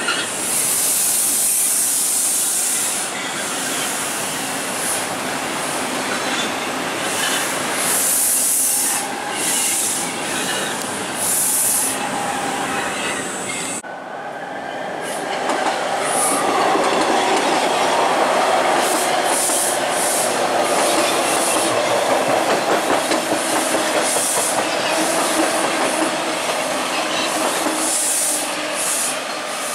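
TTC T-1 subway trains running on open-cut track, wheels clicking over the rails with repeated short high hisses. About halfway through the sound breaks off and another train is heard, with a falling whine that settles into a steady one.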